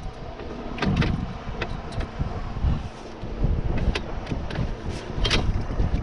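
Wind buffeting the microphone in a low rumble, with scattered clicks and knocks of gear being handled in an open fishing boat, the sharpest about a second in and near the end.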